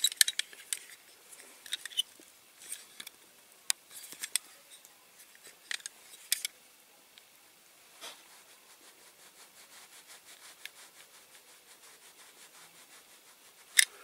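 A small hand-held drill bit scraping and clicking in a rivet of a diecast metal model truck cab as the rivet is drilled out by hand. It starts as scattered clicks and scratches, then from about eight seconds turns into a fast, even, faint scraping. The rivet is stubborn and will not drill out easily.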